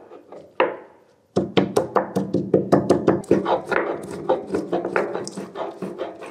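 Garam masala and black peppercorns being pounded by hand to grind them into paste: a rapid run of knocks, about five or six strikes a second, starting suddenly about a second and a half in, after a couple of single knocks.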